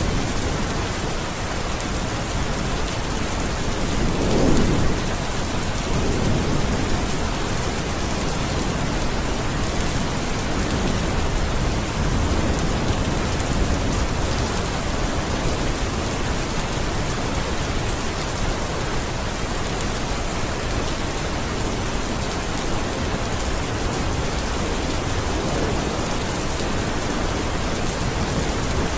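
Steady heavy rain falling on surfaces, with low rolls of thunder swelling about four seconds in and again a couple of seconds later.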